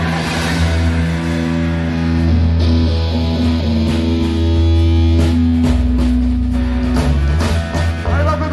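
Live rock band on electric guitars, bass guitar and drum kit, holding long ringing chords over a steady bass. Drum and cymbal hits come thicker toward the end.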